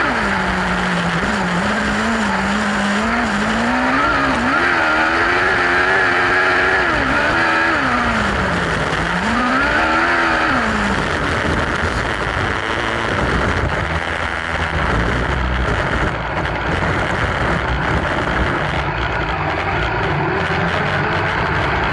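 Kawasaki ZX-12R inline-four motorcycle engine in a kartcross buggy, heard onboard, revving up and down repeatedly as the buggy is driven hard on dirt. After about eleven seconds the clear engine note gives way to a rougher rumble of engine and tyres on loose dirt.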